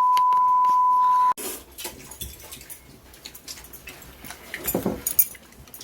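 A loud, steady 1 kHz beep of the kind laid over speech in editing cuts off sharply just over a second in. Scattered light clicks and clatter of dishes follow, busier about four and a half seconds in.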